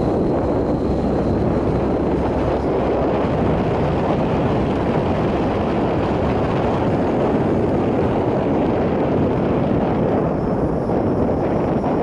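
Car driving along a road: a steady rush of wind and road noise, with wind buffeting the microphone.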